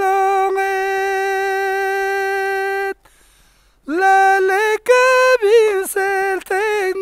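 Solo unaccompanied voice singing a folk song. It holds one long high note for about three seconds, breaks off for a breath of about a second, then goes on in short phrases with wavering ornaments.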